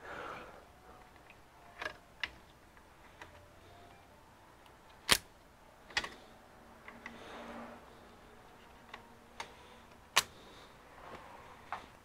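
Scattered sharp clicks and light plastic-and-metal handling noise from DDR3 laptop RAM modules (SO-DIMMs) being handled and pressed into their memory slots. The loudest clicks come about five seconds in and about ten seconds in, with a soft rustle between them.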